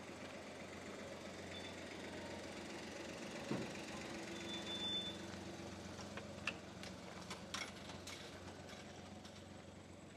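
A steady low mechanical hum, with one sharp thump about three and a half seconds in and scattered light clicks later on.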